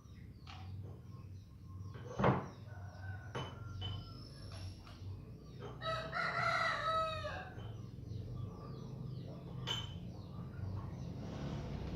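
A rooster crowing once, a call of about a second and a half starting about six seconds in, with small birds chirping throughout. A single sharp knock sounds about two seconds in.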